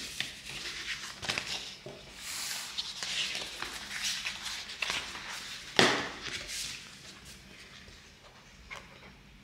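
Sheets of matte black vinyl wrap film on paper backing rustling and flapping as they are handled, bent and laid over one another, with short knocks against the table. A louder rustle comes about six seconds in, and the handling grows quieter near the end.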